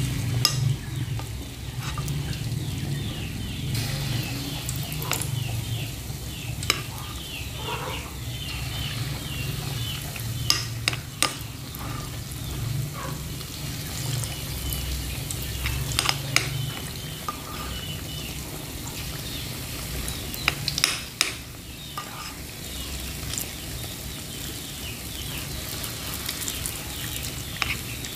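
Spoonfuls of banana yeast dough deep-frying in hot oil in a wok, sizzling and crackling steadily. A few sharp clicks, the spoon knocking the wok as more dough goes in, and a low hum underneath that fades out a little past halfway.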